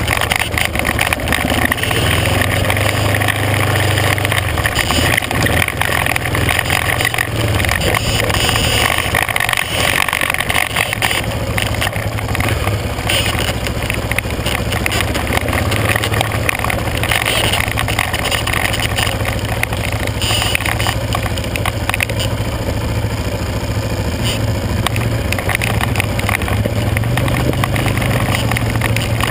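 ATV engine running steadily while riding, a constant low drone with a wide rushing noise of the ride over it.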